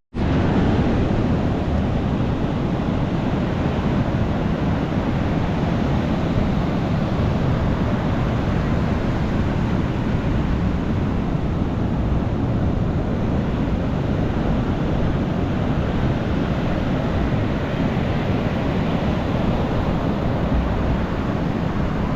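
Ocean surf washing onto a beach, a steady, continuous rush of breaking waves.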